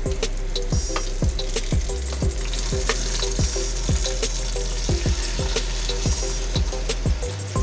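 Garlic and shallots sizzling in hot oil in a nonstick wok while being stirred. Sauce poured in over pork ribs a few seconds in keeps the pan sizzling. Background music with a steady beat, about two beats a second, plays throughout.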